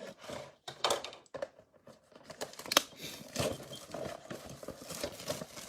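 A trading-card mega box and its wrapping being opened by hand: irregular crinkling and tearing of packaging, with small sharp clicks and taps.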